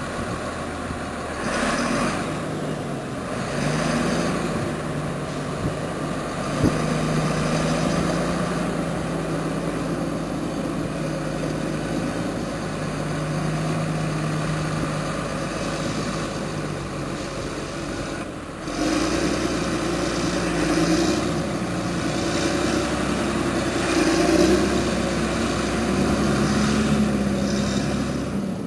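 TerraGator 8133 self-propelled slurry injector's diesel engine running steadily as the machine moves across the field, with a single knock about a quarter of the way in and a shift in the engine note about two-thirds of the way in.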